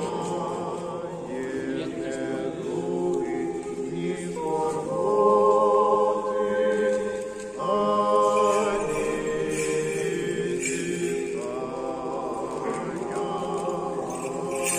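Church choir singing an Eastern-rite memorial (panakhyda) chant a cappella, in held chords that change every three to four seconds.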